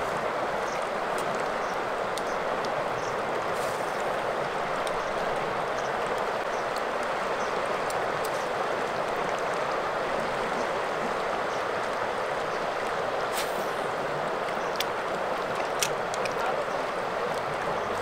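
Steady rush of a fast river's flowing water, with a few faint small clicks or splashes scattered through it.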